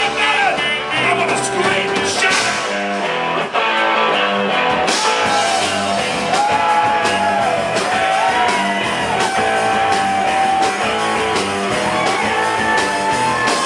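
Live band playing a rock-and-roll style number, with a melody carried in long held notes over the rhythm section.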